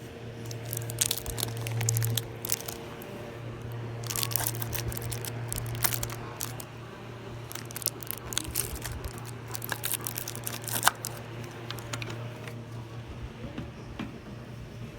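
Scattered crinkling and clicking noises, many in quick succession, over a steady low hum.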